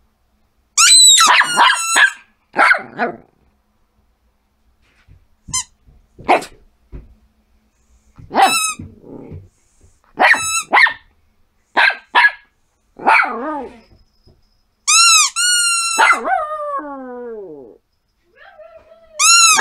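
Yorkshire terrier yapping in short, high-pitched barks spread through the stretch, with a few quick arched yips about fifteen seconds in, followed by a longer drawn-out call that falls in pitch.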